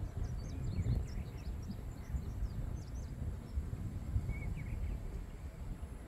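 Wind buffeting the microphone in an uneven low rumble, with small birds giving many short, high chirps through the first three seconds and a few more about four and a half seconds in.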